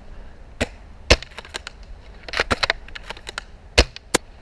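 Airsoft rifle shots: two loud sharp cracks about two and a half seconds apart, with a quick run of lighter clicks between them.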